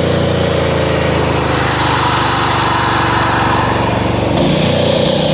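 Craftsman Z6700 zero-turn mower's 24 hp Briggs & Stratton Platinum engine running steadily just after starting; its low note changes a little about four seconds in.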